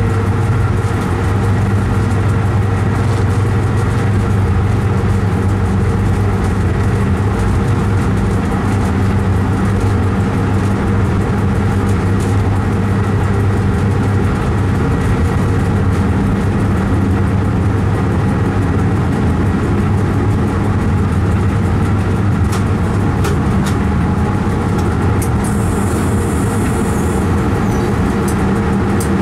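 Train running through a tunnel, heard from the driver's cab: a steady low hum from the locomotive with wheel and running noise on the rails. A few short clicks come near the end.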